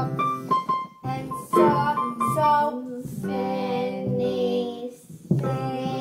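Piano being played: a run of struck notes and chords, then a chord held for a couple of seconds, a brief pause, and the playing picks up again near the end.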